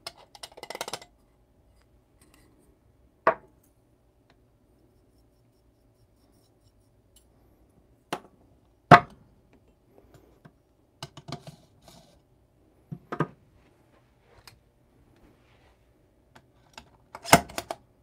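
Espresso puck prep: ground coffee rustles as it is poured from a dosing cup into a portafilter basket. Then come separate sharp knocks and clinks of the tamper, stand and portafilter as the coffee is tamped, the loudest about nine seconds in, with a short clatter near the end.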